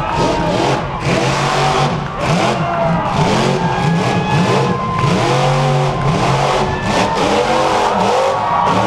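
Monster truck engine revved hard again and again, its pitch rising and falling in quick swings, about two a second.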